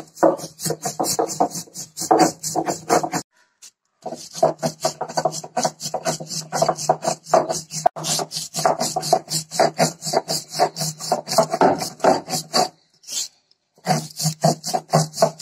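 Stone roller of an ammikallu (Kerala grinding stone) rubbed rapidly back and forth over the wet stone slab, grinding fresh leaves into paste: stone scraping on stone, several strokes a second. The strokes stop briefly about three seconds in and again near the end.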